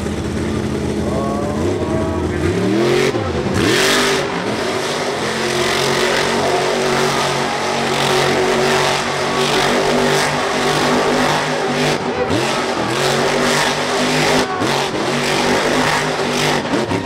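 Monster truck engine revving hard as the truck spins donuts. Its pitch drops and climbs a few times in the first few seconds, then is held high and fairly steady.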